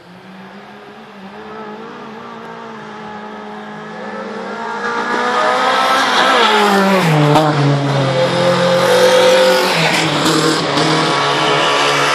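Autocross car engine running hard and drawing nearer, growing from faint to loud over the first half. Its note drops sharply a little past halfway, then holds loud.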